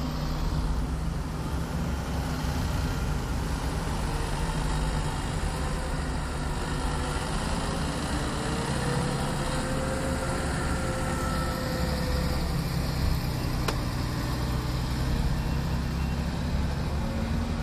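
Car engine and road noise heard from inside the cabin while moving slowly in heavy traffic: a steady low hum, with the trucks and cars around it.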